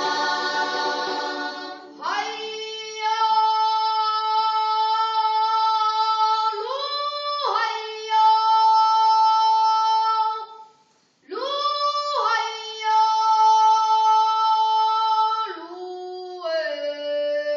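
Unaccompanied Bunun choral singing: the full group's chord breaks off about two seconds in, and then one voice sings long held notes alone, sliding up into each one. It pauses briefly about eleven seconds in and drops to a lower note near the end.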